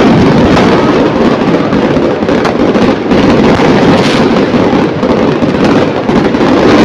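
Loud, continuous barrage of fireworks going off, a dense rumble of overlapping booms and crackling with a few sharper bangs standing out.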